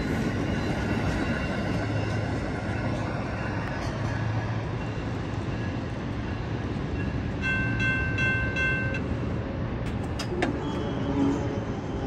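Amtrak passenger train rolling away over the rails, its steady rumble slowly easing as the last Amfleet car pulls off. A short horn chord sounds about two-thirds of the way through, followed by a few sharp clicks.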